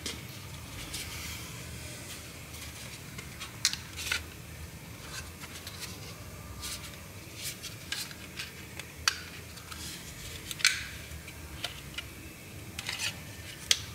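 Scattered sharp plastic clicks and rubbing as a power window switch is handled and worked into its plastic door bezel, over a low steady hum.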